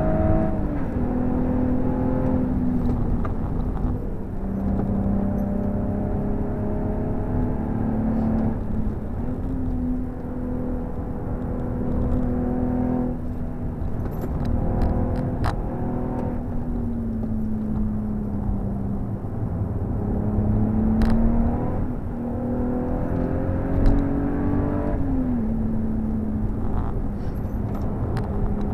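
BMW M135i's turbocharged 3.0-litre straight-six, fitted with an M Performance exhaust, heard from inside the cabin under hard track driving. The engine note holds steady, then drops away and climbs again several times, over constant tyre and road noise, with a few sharp clicks near the middle.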